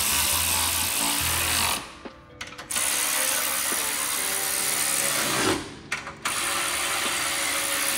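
Pneumatic air ratchet running in long bursts with a strong hiss of air, stopping briefly about two seconds in and again about six seconds in.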